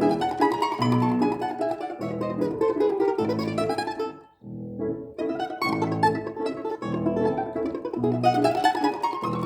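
A plucked string instrument plays fast running passages over low repeated accompaniment chords. The music breaks off briefly about four seconds in, then carries on.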